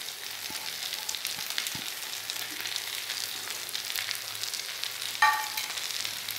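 Chicken tikka leg pieces frying in their masala and oil on a hot tawa griddle, a steady fine sizzle and crackle. About five seconds in, one brief loud note cuts through.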